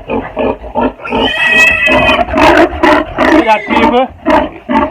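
Pigs squealing and grunting loudly: a long high squeal about a second in, then a quick run of short squeals and grunts.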